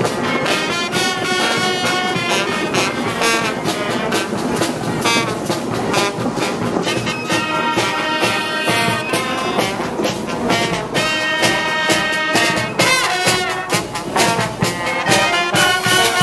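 Street brass band playing live: trombones and trumpets over percussion.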